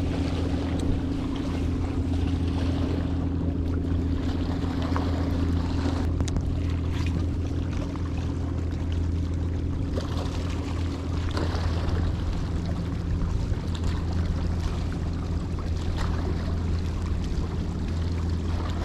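Steady low drone of an engine running at an even speed. Its higher hum drops out a little past halfway.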